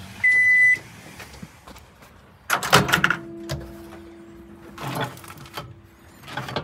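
700-watt countertop microwave oven giving a steady high beep at the end of its cooking cycle. About two and a half seconds later its door is pulled open with a clunk, followed by light knocks of a bowl being handled on the glass turntable.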